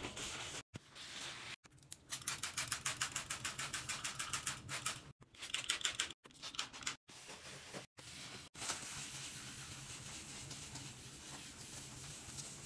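Wiping and rubbing with a paper towel and cloth on hard surfaces, broken by abrupt cuts. One stretch of quick, even scrubbing strokes runs about ten a second, and a steadier soft rubbing hiss fills the last few seconds.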